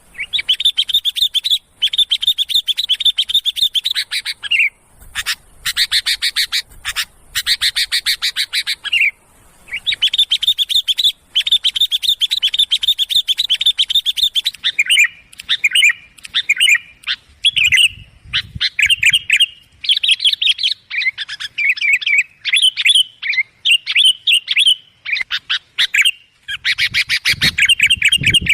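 Sooty-headed bulbuls calling loudly in the noisy chattering used as a lure call for bulbuls. Long runs of rapid chirps give way, about halfway through, to shorter, varied whistled phrases.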